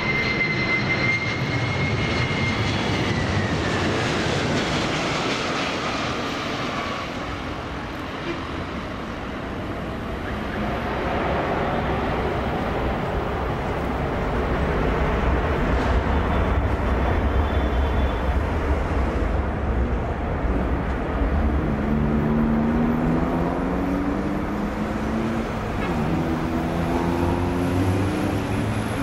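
KLM McDonnell Douglas MD-11 trijet's engines passing: a steady jet rush with a high whine that falls in pitch over a few seconds, then a heavier low rumble that swells and lasts for several seconds. Near the end a second, lower engine hum rises in pitch twice, like a road vehicle shifting up.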